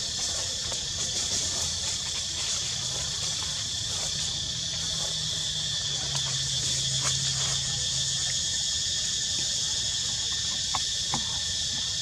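Steady high-pitched chorus of insects buzzing without a break, with a faint low hum from about three to eight seconds in and a couple of soft clicks near the end.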